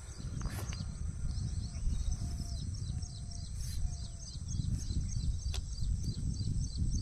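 Birds chirping over and over in quick, short, high notes, about three a second, with a lower short call repeating about once a second through the first half. A steady low rumble runs underneath.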